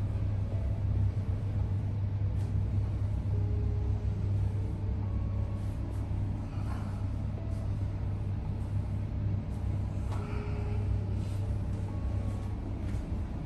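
Steady low background rumble and hum, with a few faint short taps.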